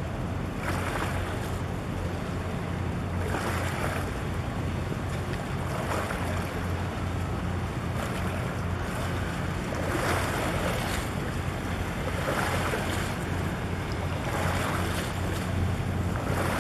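Harbour water sloshing and slapping in swells every two or three seconds, with wind buffeting the microphone, over a steady low drone.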